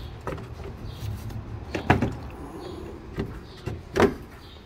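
Hard plastic knocks and clunks as a coolant expansion tank is worked back into its mounting in an engine bay, about five knocks in all, the loudest about two seconds in and near the end.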